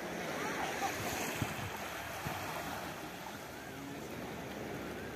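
Waves washing onto a sandy beach: a steady rush of surf.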